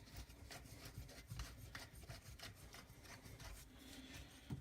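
Faint rubbing and small irregular clicks as the nut on an old sink drain is unscrewed by hand, with a soft knock near the end.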